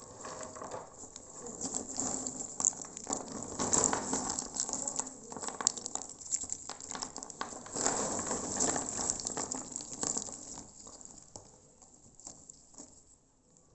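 Dried areca nuts (betel nuts) clattering against one another as a hand stirs and scoops through a heap of them, a dense rattle of many small knocks. It comes in two louder spells, then thins out and dies away near the end as the hand holds still.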